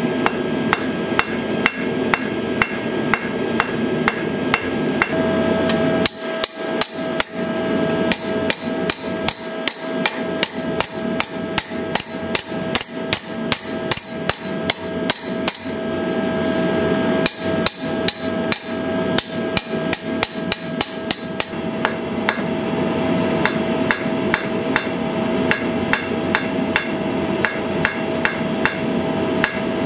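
Blacksmith's hammer striking red-hot iron on a chain-wrapped steel anvil, about three blows a second, with a steady ring behind them. The blows thin out and soften after about two-thirds of the way through.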